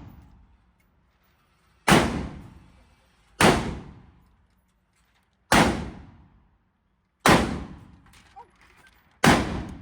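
Gunshots: five single shots fired one at a time, about every one and a half to two seconds, each a sharp crack with a short fading tail.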